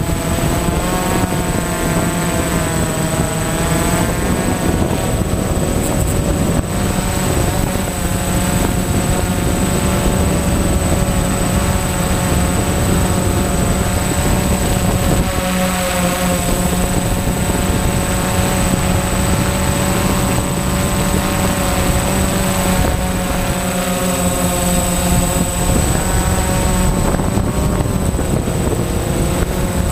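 DJI Phantom FC40 quadcopter's electric motors and propellers whirring in flight, heard from the drone itself. The whine wavers up and down in pitch as the motor speeds change, over a rushing low noise, with a steady thin high whistle on top.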